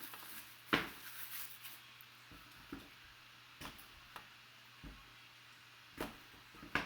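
Trading cards and their box and packaging being handled: scattered short taps and rustles, several in a row with a few seconds between.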